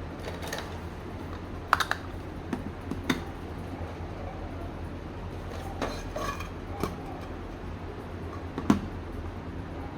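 Light clicks and taps of small craft tools and materials being handled on a work surface, scattered irregularly with a few close pairs, over a steady low hum.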